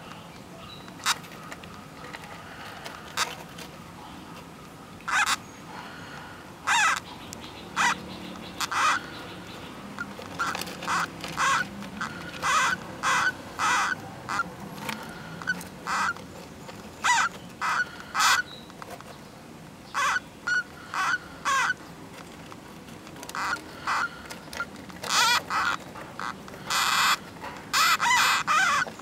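Nursing hamster pups squeaking in many short, high chirps, irregular at first and coming in quick clusters near the end.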